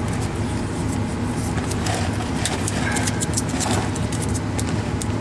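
Electrical tape being pulled off the roll, a run of quick crackling ticks from about a second and a half in, over a steady low mechanical hum.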